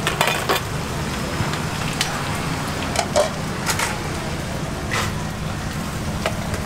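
Kitchenware clatter at a noodle soup stall: scattered short clinks and knocks of a metal ladle, bowls and serving utensils against steel trays, over a steady low hum.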